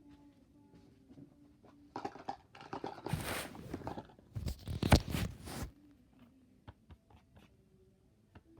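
Close-up crunching, crackling noise in two dense bursts, starting about two seconds in and loudest a little before the end of the second burst, followed by a few scattered light clicks.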